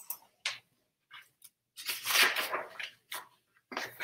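Pages of a picture book being handled and turned: a string of short paper rustles, the longest and loudest about two seconds in.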